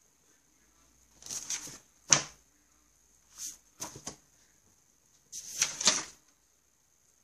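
Paper handling at a desk: spiral-notebook pages rustling, a sharp tap about two seconds in, a few lighter taps, and then a page of the spiral notebook being turned near the end, over a faint steady high whine.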